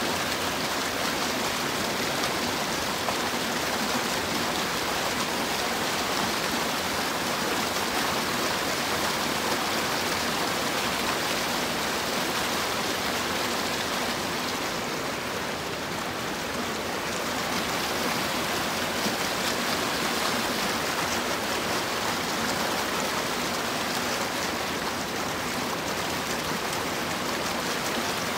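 Clear, shallow mountain stream rushing over rocks: a steady, even wash of flowing water.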